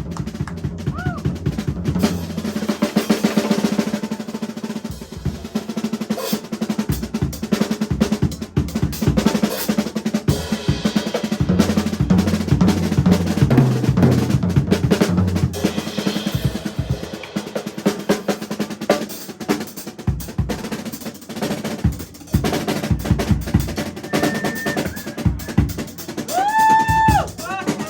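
Live band playing an instrumental passage, the drum kit loudest with rapid snare rolls and fills over bass drum. Near the end a few held notes bend up and down over the drums.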